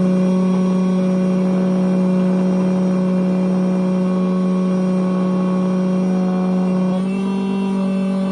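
Electric key-cutting machine running steadily with a constant motor hum while it cuts a new Chevy Camaro key blade from its key code; the pitch dips briefly about 7 seconds in.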